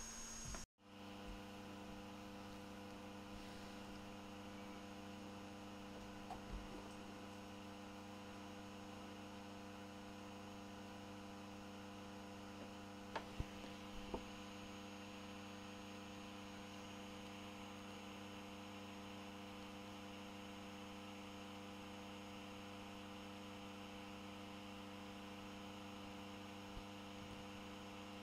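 Steady electrical mains hum with faint background hiss and a few faint clicks.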